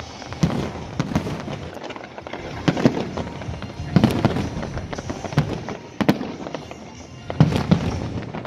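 Fireworks display: aerial shells bursting in quick succession, a dense run of bangs and crackles with heavier bangs every one to two seconds.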